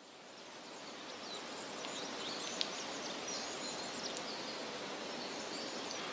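Outdoor ambience: a steady hiss-like background that fades in over the first couple of seconds, with scattered faint high-pitched chirps and a single small click midway.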